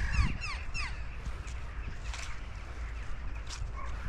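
Crows calling: a quick run of overlapping downward-gliding calls in the first second, then a few single harsh calls spaced out after it.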